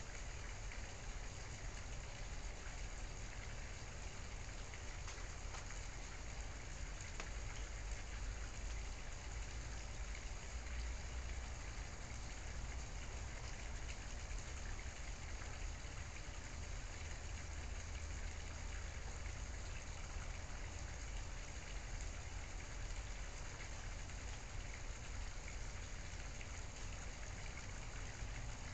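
Steady background noise: an even hiss with a low rumble underneath and no distinct events.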